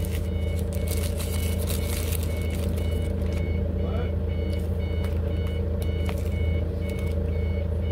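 Steady low engine drone with a high electronic beep repeating evenly over it.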